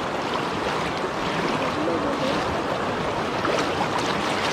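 Fast-flowing floodwater rushing steadily around a wader.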